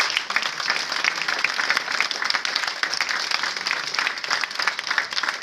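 Audience applauding: many people clapping at once, a dense, steady patter of hand claps.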